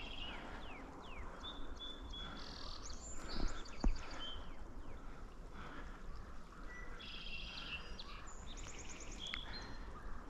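Several songbirds singing and calling, with short chirps, slurred whistles and quick trills, over a steady outdoor background hiss; a single sharp click about four seconds in.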